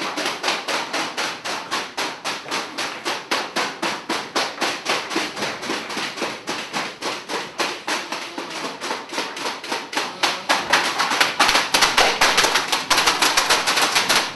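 Steady rhythmic percussion: sharp claps or knocks at about five a second, getting louder about ten seconds in.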